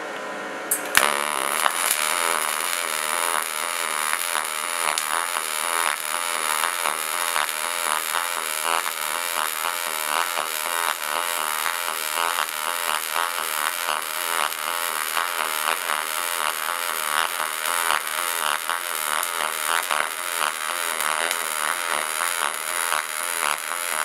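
Double-pulse MIG welding arc on aluminium, striking about a second in and then buzzing steadily with a fast crackling pulse, along with a steady high-pitched whine.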